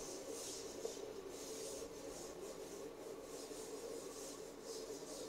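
Faint rubbing and rustling of fingers handling a small plastic automotive relay and rocker switch, over a low steady hum, with one tiny tick about a second in.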